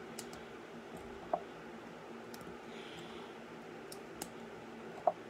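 Small plastic LEGO pieces handled and pressed into place: a few sharp, light clicks, two louder ones about a second in and near the end.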